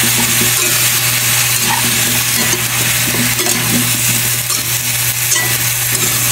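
Chunks of squash and green papaya sizzling in hot oil in a metal wok while a metal spatula stirs and scrapes them against the pan. A steady low hum runs underneath.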